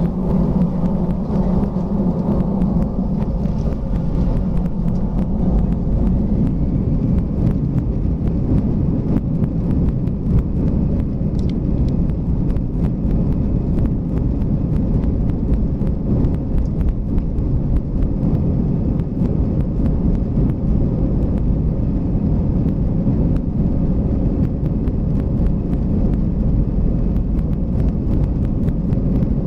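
Airbus A320 takeoff roll heard from inside the cabin: the jet engines at high thrust make a steady, heavy rumble as the airliner speeds down the runway. Small knocks and rattles from the cabin and landing gear sound throughout.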